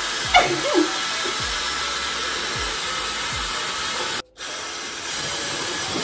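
Dyson Supersonic hair dryer blowing steadily: a rush of air with a high-pitched whine above it. The sound cuts out for a moment about four seconds in and comes back slightly quieter.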